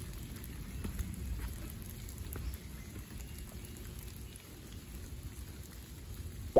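Rain falling and dripping in woodland: a steady patter with scattered single drops. A short, sharp rising squeak comes right at the very end.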